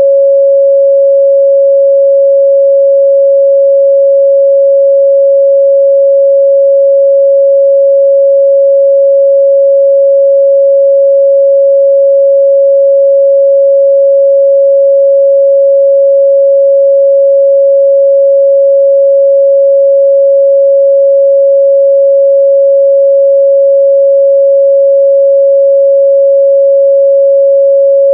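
A steady, loud 553 Hz pure sine-wave test tone, held at one pitch and level without a break.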